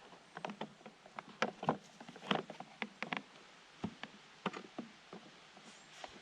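Irregular short clicks and knocks of hands handling and fitting the plastic discharge parts of a battery lawnmower, with the mower switched off; the clicks come most densely about one and a half to two and a half seconds in.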